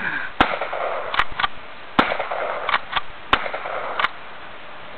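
Three gunshots, sharp single cracks about a second and a half apart, with two fainter clicks between them.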